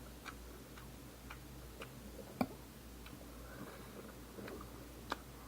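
Faint, evenly paced ticking, about two ticks a second, with one louder click about two and a half seconds in.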